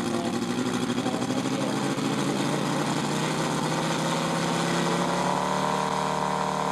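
MOKI radial engine of a large RC Bücker Jungmeister model biplane, running steadily on the ground with the propeller turning. Its pitch climbs slightly in the second half as it is opened up a little.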